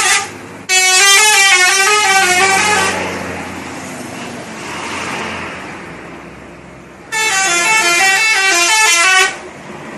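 A bus's multi-tone 'telolet' horn playing its short warbling tune twice, each time for about two seconds, with traffic noise between the two.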